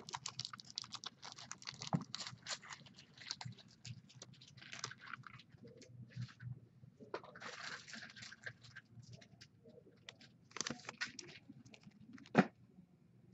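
Trading cards and their packaging being handled: a scatter of light clicks and taps with short rustling slides, and a sharper click near the end.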